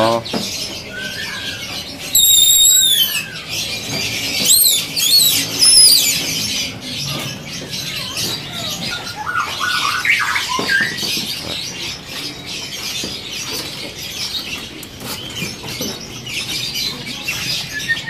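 Many caged songbirds chirping and calling together, with loud, clear whistled song phrases about two seconds in and again around five seconds.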